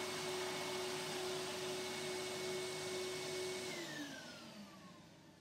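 Bench belt sander running with a steady motor whine, then switched off about three and a half seconds in, its pitch falling as the motor winds down.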